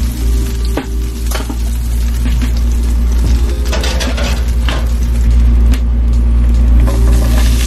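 Sizzling in a hot frying pan of steak juices, with a few sharp clanks of kitchenware and the oven door. Near the end, mushrooms and tomatoes are tipped into the pan and begin to sizzle.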